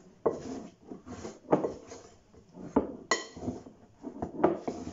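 A wooden spoon stirring flour- and egg-coated chicken pieces in a glass Pyrex bowl: irregular knocks and scrapes of the spoon against the glass, a few with a short ringing clink.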